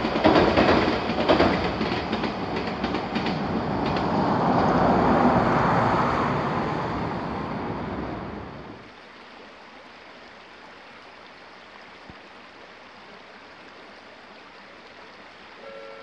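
Odakyu electric commuter train passing on the Odawara Line, its wheels clicking over the rail joints and the rumble swelling and then fading away about nine seconds in, leaving only a faint steady hiss.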